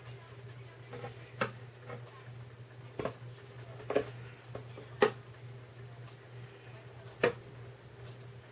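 Sharp little clicks and taps, about seven of them at irregular spacing, as a metal shield plate in a guitar's control cavity is worked loose with a toothpick. A steady low hum runs underneath.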